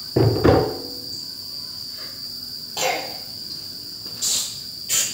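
Crickets trilling steadily in one high, unbroken tone. Two loud bumps come about a quarter to half a second in, and a few short noises follow around three, four and five seconds in.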